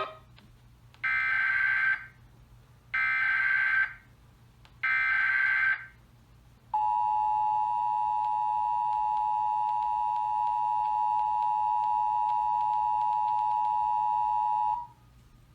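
Emergency Alert System alert tones: three short bursts of SAME header data, about a second each, then the two-tone attention signal held steady for about eight seconds and cut off. They signal the start of an emergency alert broadcast.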